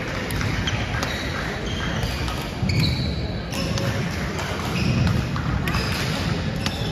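Badminton play on a wooden gym floor: court shoes squeaking in many short chirps and rackets hitting shuttlecocks with sharp clicks.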